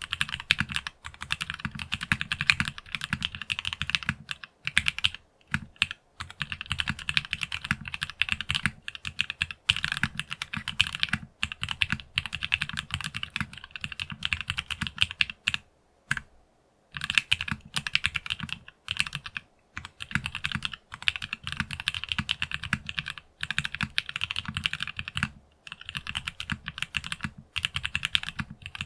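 Fast typing on a Geonworks Frog Mini mechanical keyboard with factory-lubed Gateron North Pole linear switches, an FR4 half plate and PBT keycaps: dense runs of keystrokes, each with a deep low thock alongside the higher click of the keycaps, broken by brief pauses, the longest about two-thirds of the way through.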